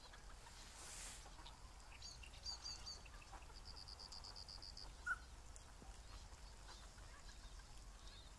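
Faint bird calls: a few short high chirps about two seconds in, then a quick, even, high-pitched trill of about ten notes, and a single short, louder call about five seconds in.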